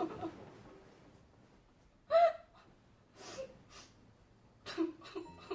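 A girl's stifled sobbing: a few short catching sobs and whimpers with quiet breaths between them, the loudest about two seconds in.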